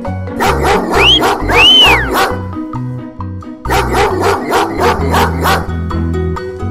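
Children's background music with a steady beat, with two cartoon sound effects about a second in that rise and then fall in pitch.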